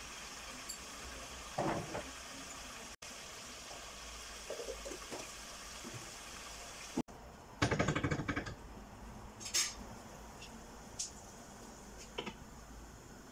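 Kitchen cookware sounds over a faint steady hiss: a rapid metallic clattering against a cooking pot about eight seconds in, and a few lighter clinks. One clink near the end comes as a glass lid is set on the pot.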